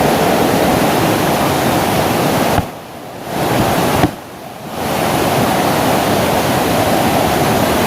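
Waterfall rushing as a loud, steady roar of falling water; twice, about two and a half and four seconds in, the sound drops away suddenly for under a second before coming back.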